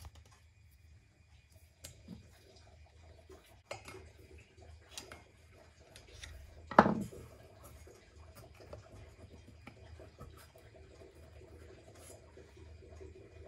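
Small clicks and scrapes of a screwdriver and rubber valve stem seals being worked onto the valve guides in an aluminium cylinder head, with one much sharper knock about seven seconds in.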